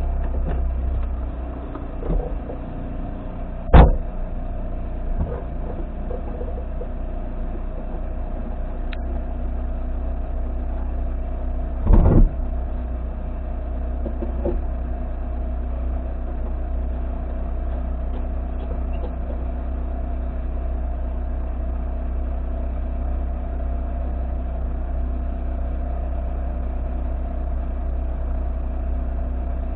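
A vehicle's engine idling steadily, heard from inside the cabin as a low rumble with a steady hum. There is a sharp knock about four seconds in and a short louder burst of noise around twelve seconds.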